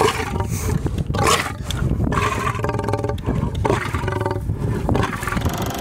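Adult white lion roaring at close range: a run of short, deep roars with brief breaks between them.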